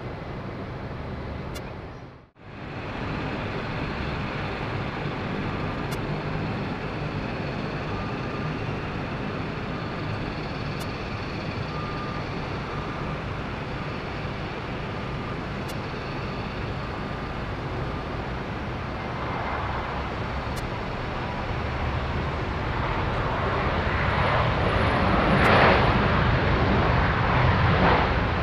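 Airbus A320-232 airliner's IAE V2500 turbofans running, a steady jet rumble that grows louder over the last several seconds as the aircraft comes closer. The sound drops out briefly about two seconds in.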